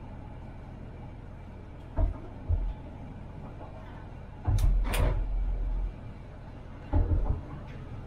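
Tram running with a steady hum, broken by several short low thuds and, about halfway through, a louder rumbling stretch with two sharp clicks.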